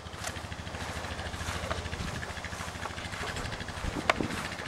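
Honda 4x4 ATV engine running steadily at idle, an even low pulse. Two sharp knocks sound over it, the louder one about four seconds in.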